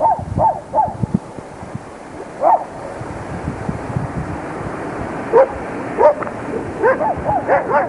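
A dog barking in short yaps, several in quick succession at the start, single ones in the middle and a quick cluster near the end, over a background rush that grows louder toward the end.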